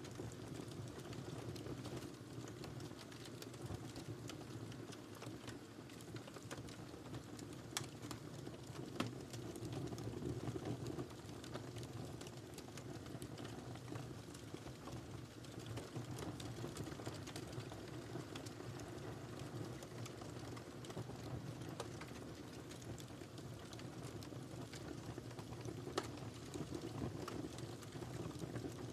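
Wood fire burning in a fireplace: a steady low rumble of the flames, with frequent small crackles and a few sharper pops.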